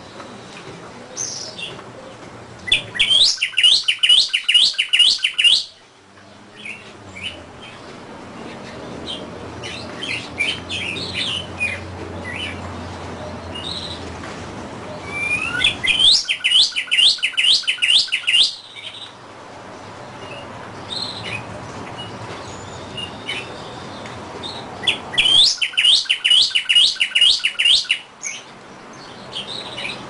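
Northern cardinal singing: three loud phrases of quickly repeated down-slurred whistles, about three a second, with softer chirps between the phrases.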